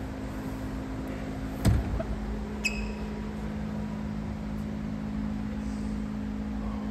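Steady low background hum in a car shop, with a single thump about one and a half seconds in and a short ringing tick about a second after it.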